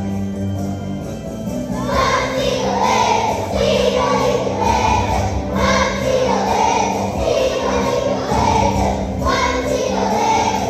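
A choir of young children singing together over an instrumental accompaniment; the voices come in about two seconds in, after a short stretch of accompaniment alone.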